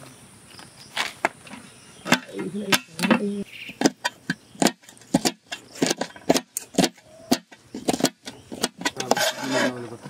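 Knife chopping yard-long beans on a metal tray: a fast, irregular run of sharp taps as the blade cuts through the beans and strikes the metal, several a second.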